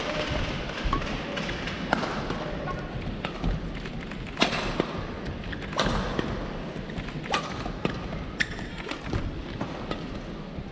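Badminton rally: sharp racket strikes on the shuttlecock every second or so, with players' footsteps thudding on the court, over the echoing hum of a large arena.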